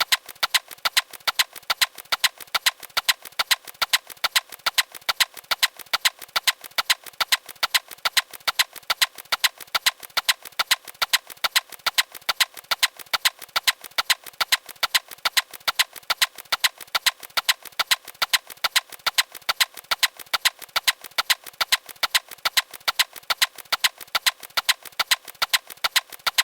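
A steady run of sharp mechanical clicks, about four a second, in an even rhythm.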